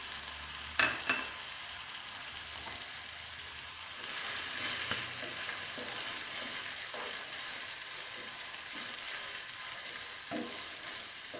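Chicken pieces in a yogurt and spice mixture sizzling in a frying pan while being stirred, with a steady hiss. There are two sharp clicks about a second in and a few fainter knocks later on.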